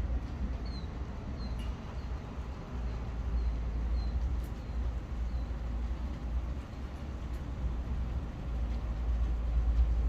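Low, rolling rumble of distant thunder during a thunderstorm, swelling and fading, and growing louder near the end.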